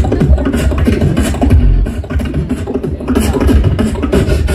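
Live beatboxing amplified through a stage PA, a fast rhythmic beat with heavy bass.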